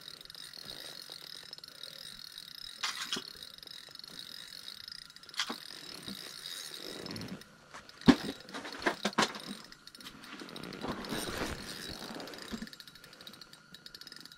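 Spinning reel's drag clicking steadily as a hooked lake trout pulls line off it, for about the first half. After that come a few sharp clicks and knocks from handling the reel.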